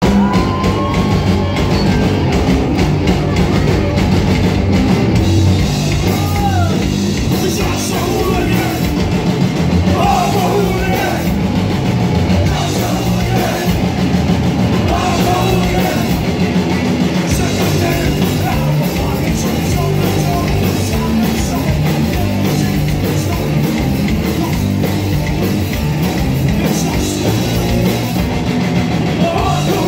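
Live hardcore punk band playing loud and without a break: electric guitar, bass and drum kit, with a singer over them.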